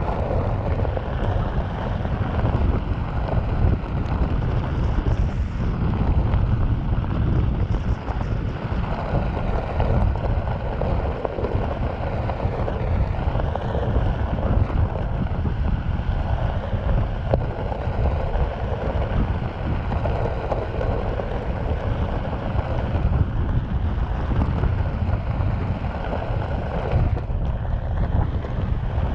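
Onewheel tyre rolling steadily over a gravel desert trail, with wind buffeting the camera microphone.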